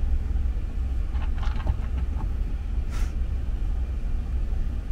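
Car cabin noise while driving: the steady low rumble of the engine and tyres, with a short click about three seconds in.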